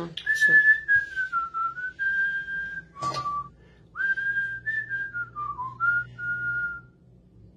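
A person whistling a slow tune of clear held notes that dip and rise, in two phrases. Between the phrases, about three seconds in, come a click and a short lower note.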